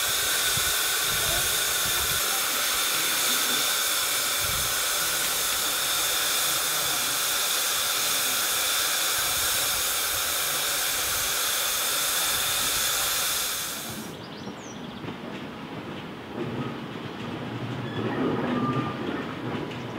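Loud, steady hiss of steam escaping from a 4-4-0T narrow-gauge steam tank locomotive, which stops abruptly about two-thirds of the way in. After it, the locomotive is heard moving off with its coaches, growing louder near the end.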